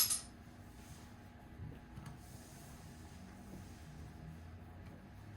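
Small screw being worked into plastic RC truck parts by hand with a screwdriver: one sharp click at the start, then a few faint ticks over a low room hum.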